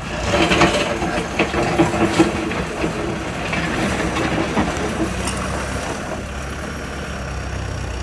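Heavy diesel engine of earthmoving machinery running steadily, with a series of sharp clanks and knocks in the first three seconds.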